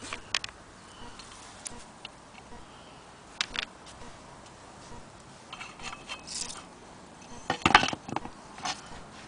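Cast-iron hand crank and handwheel of a Willcox & Gibbs sewing machine being handled, giving scattered clicks and knocks, with the loudest cluster of knocks near the end.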